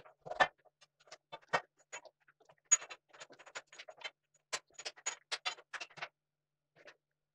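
Steel clamps and hold-down hardware being set and shifted on a planer mill's T-slot table: a run of sharp metallic clicks and clinks, thickest in the middle, stopping about six seconds in.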